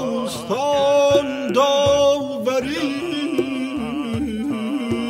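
A small vocal ensemble singing in a contemporary classical style. A higher voice holds long notes with vibrato, sliding up into each one, while a lower voice moves in a wavering line beneath it.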